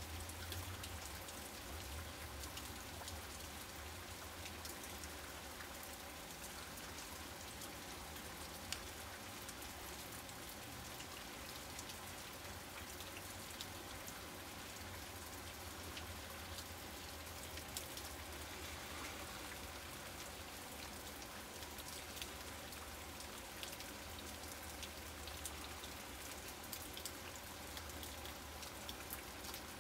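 Steady rain falling, with many scattered drop hits close by and a low rumble underneath.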